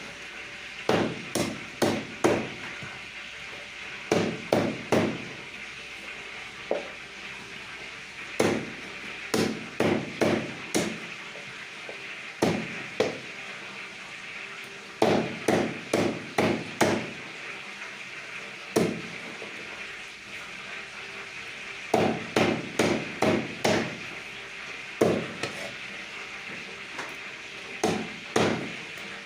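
Cleaver chopping chicken on a wooden block: sharp knocks in quick runs of three to five strokes, with short pauses between runs.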